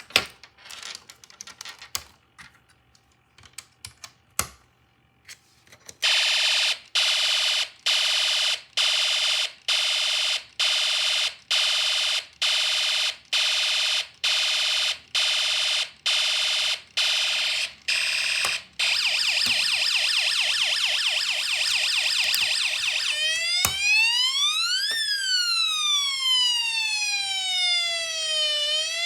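Electronic sound effects from a Snap Circuits sound circuit's speaker. A few scattered clicks come first. About six seconds in, a harsh buzzing tone starts pulsing a little faster than once a second. Near 19 s it changes to a fast stutter, and from about 23 s it becomes a siren-like tone sweeping up quickly and falling slowly, over and over.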